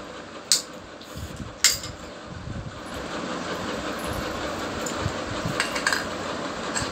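Sharp metallic clicks from a small child working the lever of a stainless-steel domestic flour mill: two clear ones in the first two seconds and a softer cluster near the end, over a steady machine noise that grows a little louder partway through.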